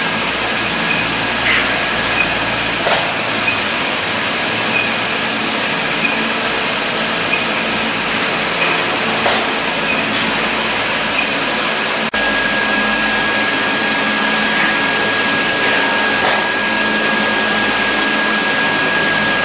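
Induction brazing machine on a diamond saw blade welding rack running: a steady whirring machine noise with a high, steady whine, a faint tick about once a second and a few sharp clicks. A brief dropout comes about twelve seconds in, after which the whine is stronger.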